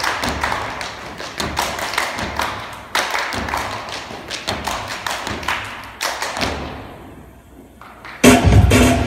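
A dance team's stomps and hand claps on a stage, echoing in the gym hall in an irregular rhythm that fades away. Recorded music starts loudly about eight seconds in.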